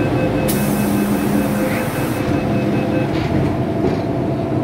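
MTR M-Train door-closing warning: a rapid run of evenly repeating beeps with a burst of hiss, then the saloon doors slide shut about three seconds in.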